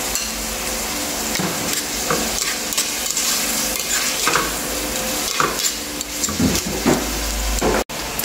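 Chicken pieces sizzling as they fry in butter in a stainless steel pan, with a utensil scraping and stirring them against the pan several times. The sound cuts out for an instant near the end.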